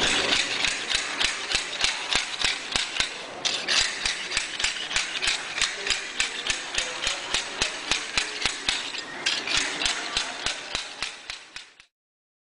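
PowerScraper slide-hammer floor scraper being driven in quick repeated strokes, sharp clacks about four a second, with its blade chipping and scraping hardened residue off a concrete floor. The sound cuts off suddenly near the end.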